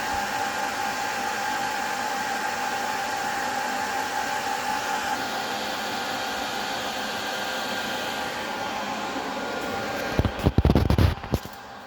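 NetApp FAS2040 storage server's cooling fans running at power-on: a loud steady rush of air with a steady whine in it. Near the end, a brief cluster of loud low knocks.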